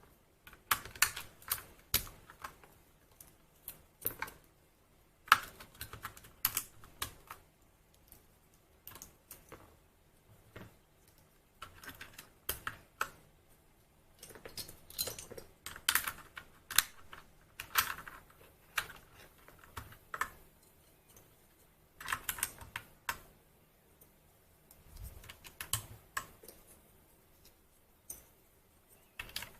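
Typing on an Anne Pro 2 mechanical keyboard fitted with linear Gateron Red switches: rapid key clacks in irregular bursts with short pauses between.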